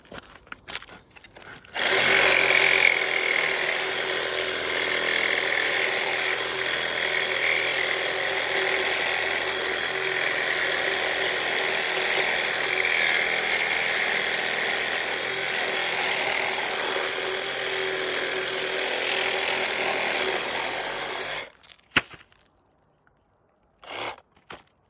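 Milwaukee M18 Fuel Hackzall one-handed reciprocating saw running steadily under load, cutting into a large electric motor's copper windings. It starts about two seconds in, runs for about twenty seconds and cuts off suddenly, followed by a single sharp knock.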